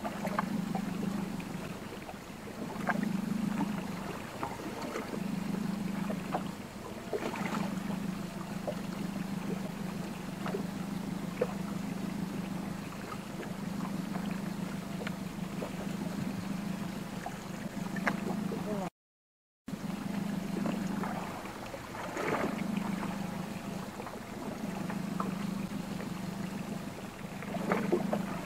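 Water lapping against the hull of a small inflatable boat at sea, with a low hum that swells and fades about every two seconds and scattered light clicks. The sound cuts out for under a second about two-thirds of the way through.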